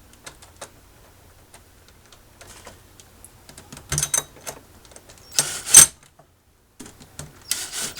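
Screws being started and tightened to fasten a stainless steel hinge to a Coleman cooler: scattered light clicks and taps, then short, louder bursts of screw-driving noise about four seconds in, a little later, and again near the end.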